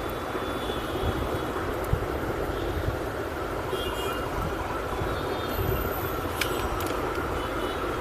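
Steady background rumble and hiss with a few light clicks and taps of laptop parts being handled and fitted during reassembly.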